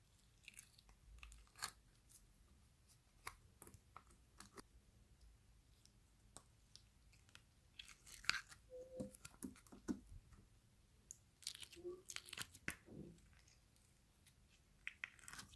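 Near silence with faint, scattered small clicks and crackles, a few more in the middle, like slime being squished and poked.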